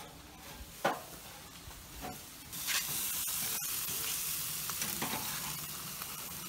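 Burger patties sizzling on a grill grate, the sizzle coming up suddenly about two and a half seconds in and holding steady. A single knock is heard about a second in.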